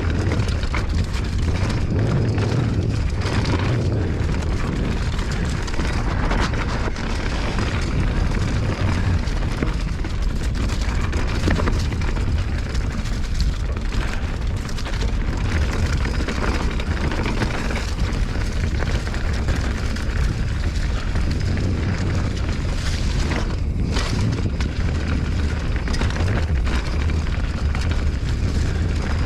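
Wind buffeting the microphone of a rider moving along a trail, a steady low rumble with scattered knocks and rattles from the ride over rough ground.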